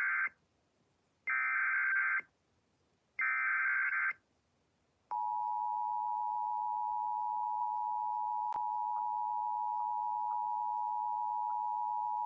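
Emergency Alert System broadcast opening a fire warning: the tail of one SAME header data burst and then two more buzzy digital data bursts of about a second each, followed about five seconds in by the steady two-tone EAS attention signal, held unchanged to the end.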